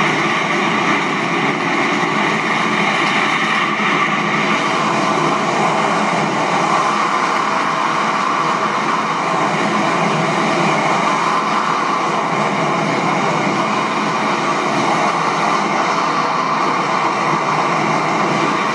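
Steady rushing wind noise on a skydiving camera's microphone during canopy flight, played back loud through a TV speaker.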